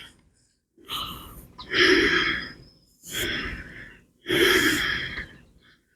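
A man breathing out heavily three times, close to the microphone.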